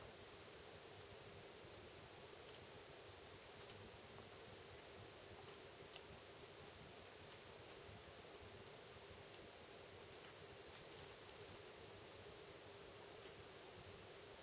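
A Japanese wind bell (furin) rung by its clapper at irregular moments, about ten strikes in all, some single and some in quick runs of two to four. Each strike gives a high, clear ring that fades over a second or two, over a faint steady hum.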